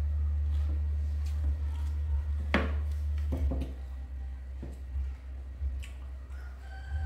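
Eating sounds: a metal spoon scraping and tapping in a paper-lined food tray as mouthfuls are scooped, with soft chewing, over a steady low hum. The sharpest click comes about two and a half seconds in, with a few more scrapes just after.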